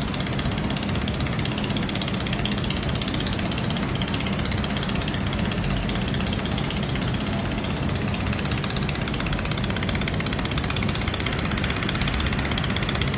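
A robot-held fiber laser welding head welding a metal part: a steady machine hum under a fast, fine crackling buzz.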